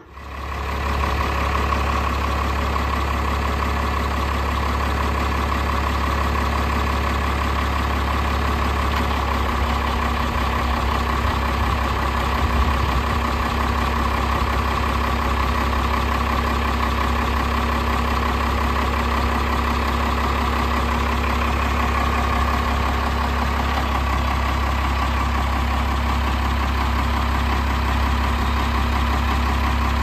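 Diesel engine of a red Ford Cargo cab-over truck idling steadily, running after a jump start.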